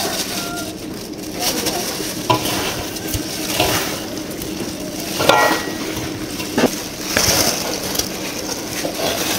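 Gloved hands mixing marinated slices of raw pork belly in a large aluminium basin: wet squishing of the meat and crinkling plastic gloves, with a few short knocks against the basin.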